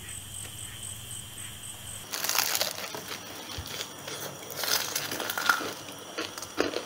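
Crunching bites into crispy battered fried chicken: repeated crunches from about two seconds in, as two people eat. A faint steady hiss comes before them.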